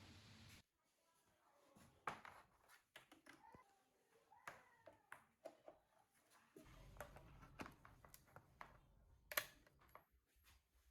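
Faint, scattered clicks and light taps of small hard parts being handled, with a low hum coming in about two-thirds of the way through.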